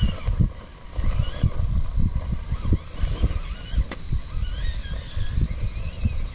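Radio-controlled scale crawler's electric motor and gears whining in a thin tone that rises and falls in pitch with the throttle. Heavy wind rumble on the microphone comes in gusts underneath and is the loudest sound.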